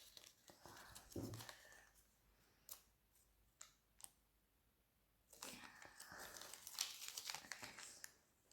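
Faint crinkling and rustling of a Kinder Joy toy's small packaging and parts being handled, with a few light clicks, then a longer stretch of crinkling from about five seconds in.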